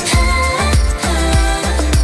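Pop song playing between sung lines: a steady beat with deep bass and a melody over it.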